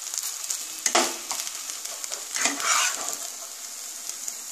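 Spatula scraping a fried mashed-potato and vegetable filling across a pan to lift it out, with two louder scrapes over the steady sizzle of the hot oil.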